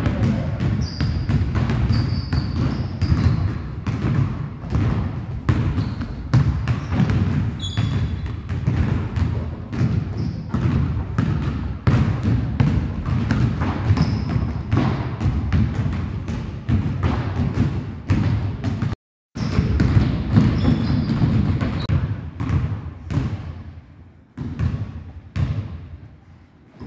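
Several basketballs being dribbled on a hardwood gym floor: rapid, overlapping bounces with a few short high squeaks. The sound breaks off for a moment about two-thirds of the way through, and the bouncing thins out and grows quieter near the end.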